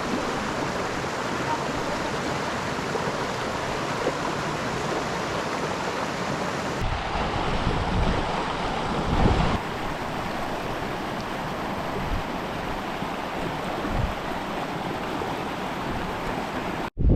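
Water of a stream rushing steadily, with a few low bumps about halfway through.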